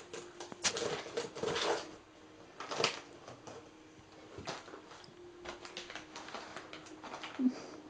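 Crinkling and rustling of a plastic bag of dry cat food as a cat grabs it in its teeth and drags it out of a cardboard box, with scattered clicks and scrapes. A short low knock near the end.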